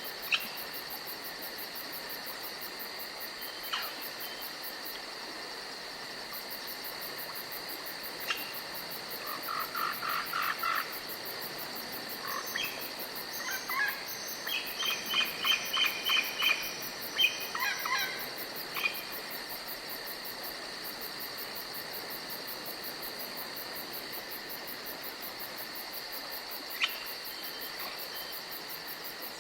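Forest ambience of a steady insect chorus: crickets trilling at a high, even pitch with a fast pulsing above. Between about 9 and 18 seconds in, an animal gives a run of short repeated calls. A few single sharp chirps stand out elsewhere.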